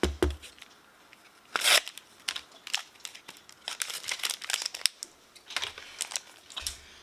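A Pokémon trading-card booster pack's wrapper crinkling and being torn open by hand, with irregular crackles and one louder rip about a second and a half in.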